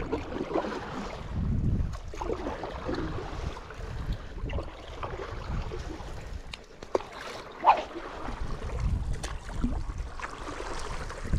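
Stand-up paddle strokes and water splashing and lapping around the board, with wind noise on the microphone.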